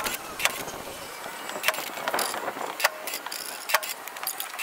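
A side-by-side's plow winch tilting the snow plow blade up and letting it back down, a steady whirring hiss broken by several sharp clicks and knocks at uneven intervals.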